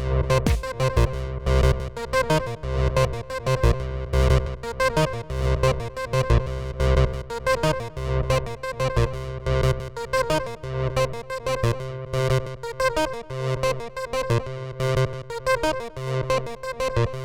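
Acid-style techno played on a Roland JU-06A synthesizer over a Roland TR-8 drum machine. A repeating synth line and pulsing bass run over a steady beat with busy hi-hats.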